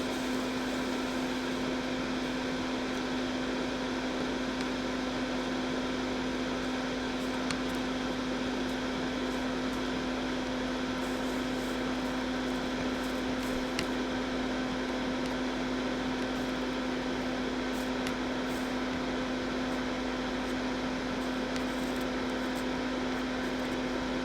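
Steady mechanical hum at one constant pitch, with a couple of faint ticks.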